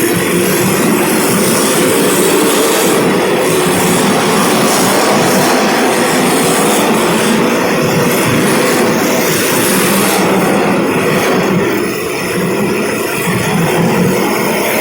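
A pack of small race cars running together on the track, their engines making a loud, continuous drone that dips briefly near the end.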